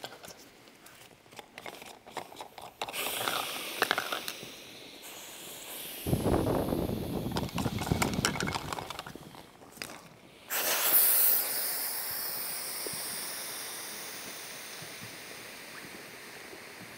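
Air rushing and hissing out of an NRS inflatable rescue boat's opened valves as the boat is deflated. Several shorter bursts of hiss and a lower rushing sound come first, then a loud hiss starts suddenly about ten seconds in and slowly fades.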